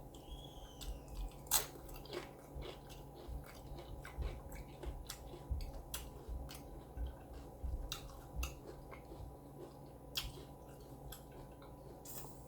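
Close-up chewing of a mouthful of taco, with irregular crisp crunches and wet mouth sounds.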